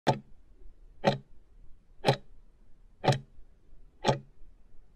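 Countdown-timer sound effect: five sharp clock ticks, one each second, marking the last five seconds of the timer.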